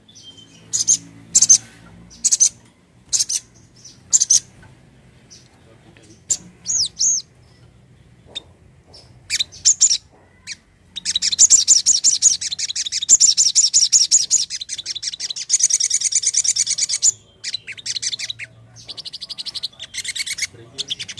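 A sunbird (sogon) singing: short, sharp high chirps about once a second, a few curving whistled notes, then about halfway through a long, rapid high trill lasting some six seconds, followed by more short phrases.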